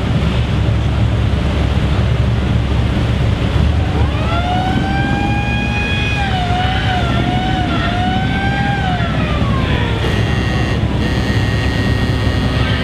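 A siren winds up, holds with a wavering pitch, then slowly winds down, over the steady rumble of a row of Ford Model T engines idling.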